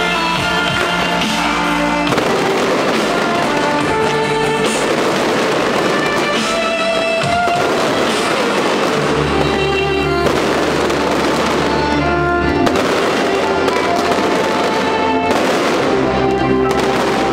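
Loud music with held notes and a steady bass line plays over a fireworks display, the fireworks going off beneath it.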